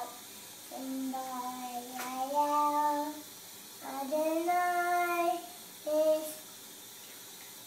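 Young boy singing a song in long held notes: two phrases and a short final note, then he stops about six and a half seconds in.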